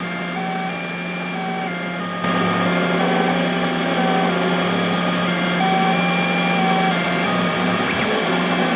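XYZ da Vinci Mini W+ 3D printer running a print: a steady low hum with short whining tones from its stepper motors that jump between pitches as the print head moves. It gets louder about two seconds in.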